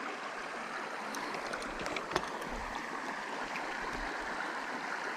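Shallow creek water running, a steady rushing hiss, with a light click about two seconds in.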